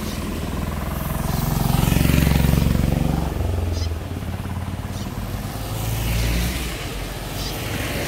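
Vehicles coming downhill pass close by one after another on a wet road, their engine rumble and tyre hiss swelling and fading. The first pass is loudest about two seconds in and the next around six seconds.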